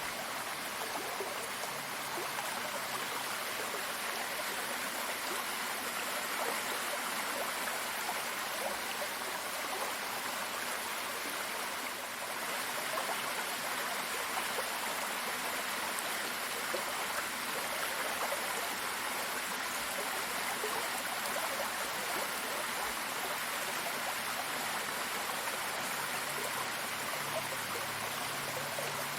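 Water running and splashing in a steady, unbroken rush, as of a stream or small waterfall.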